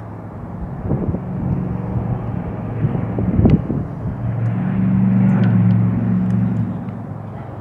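Low engine drone outdoors, swelling about five seconds in and then fading, with a brief thump about three and a half seconds in.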